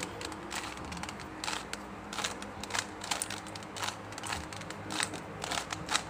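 Plastic Rubik's cube being turned by hand, its layers giving a run of light, irregular clicks, several a second. The face-turn sequence is being repeated to bring up the cross on the top face.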